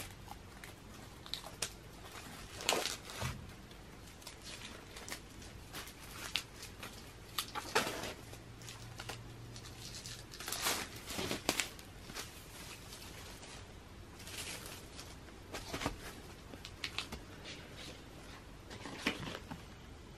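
Irregular rustling, scraping and light knocks of hands handling a hardcover photobook and its packaging on bubble wrap, with the book slid out of its case and opened, and the plastic crinkling now and then.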